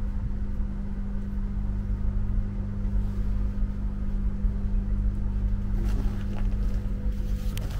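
Diesel generator running on an adjacent track: a steady, unchanging low hum.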